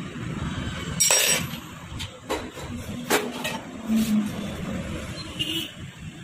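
Steel spanners clinking and knocking against a motorcycle's front axle and fork as the front wheel is taken apart for a fork oil seal change. Several sharp metallic clinks; the loudest, about a second in, rings briefly.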